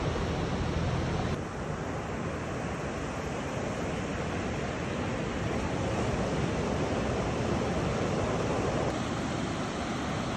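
Ocean surf washing steadily onto a beach. A low rumble drops away about a second and a half in.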